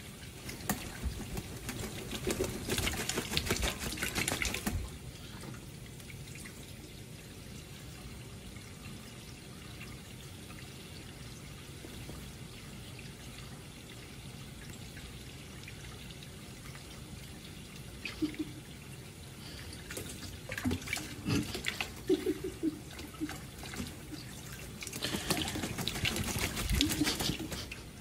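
Kitchen faucet running steadily into a bowl of water in the sink, with a Timneh African grey parrot bathing: bursts of splashing and flapping wet wings in the first five seconds and again over the last several seconds.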